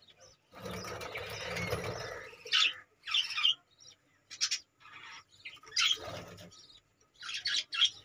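Budgerigars chirping in short, sharp calls, several in quick succession near the end. A rustle lasting under two seconds comes about half a second in.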